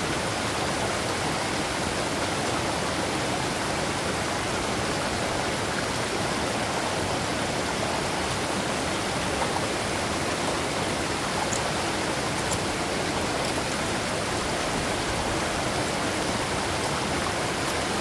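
A mountain stream rushing and splashing over rocks below a waterfall, a steady even rush of water.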